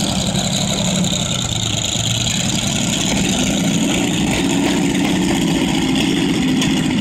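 Ferrari 250 LM's 3.3-litre naturally aspirated V12 idling steadily. Its pitch rises slightly about three and a half seconds in and then holds there.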